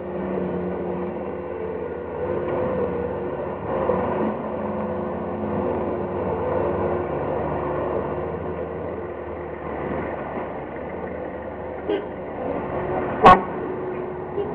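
Skid-steer loader's engine running steadily, a constant machine hum. A single sharp knock sounds near the end.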